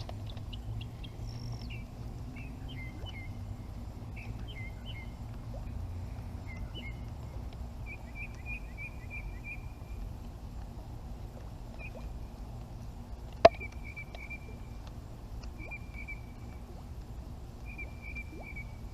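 Birds calling: short paired chirps, then several quick trills of repeated notes, over a steady low background rumble. One sharp click, the loudest sound, comes about halfway through.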